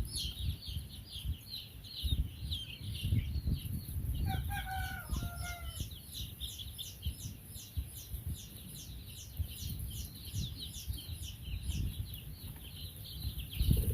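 A flock of young chicks peeping steadily, a rapid run of short, high, falling peeps, with one longer, lower call from a single bird about four seconds in.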